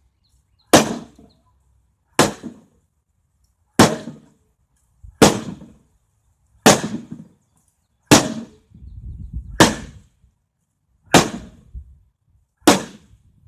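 Nine sharp, loud bangs about a second and a half apart, each dying away quickly: repeated strikes on an old microwave, which holds up without busting.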